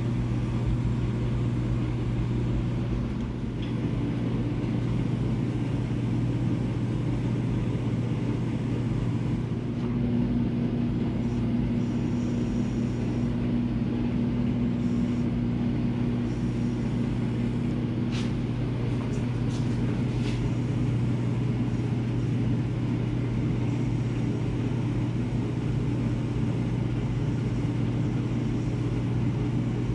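Steady low mechanical hum with a haze of air noise, from shop equipment running while a compressed-air powder-coating gun sprays. A second, higher steady tone joins for about eight seconds around the middle, and a few faint ticks come shortly after.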